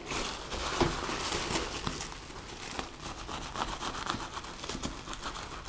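Bubble wrap and plastic packing crinkling and rustling as hands handle it and pull it out of a padded mailer.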